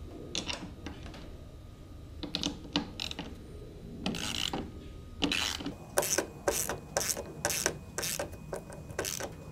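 Ratchet of a 7/16 socket wrench clicking, first in short irregular spurts and then in a steady run of about three or four clicks a second, as the nuts are tightened onto a kayak mount's screws held by a Phillips screwdriver.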